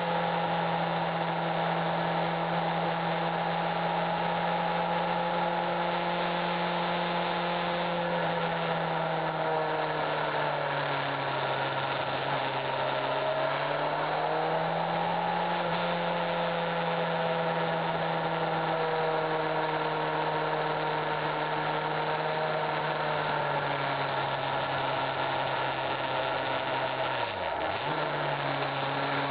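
Motorcycle engine running under way on the riding bike, with wind noise; its pitch drops about eight seconds in, climbs again around fourteen seconds, eases down again past twenty seconds, and dips sharply and recovers near the end.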